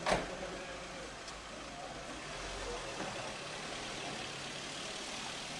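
A single sharp knock about a tenth of a second in, followed by steady low background noise.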